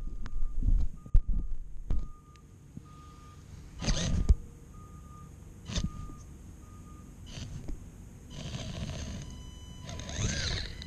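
Short electronic beeps at one steady pitch, repeating about every 0.7 seconds and stopping about seven seconds in, with two sharp knocks among them. Near the end comes a brief whirring hiss with thin high tones.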